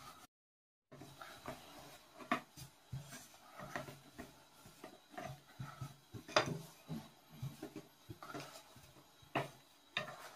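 Wooden rolling pin rolling out dough on a countertop, with irregular light knocks and clicks as it bumps and shifts on the counter; the strongest knocks come about two, six and nine seconds in.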